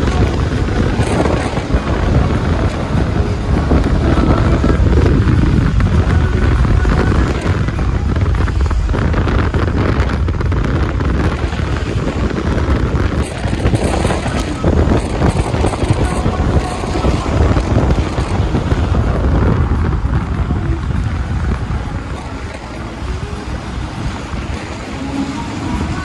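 Steady low rumble of road and wind noise from a moving vehicle in traffic, easing a little in level about three-quarters of the way through.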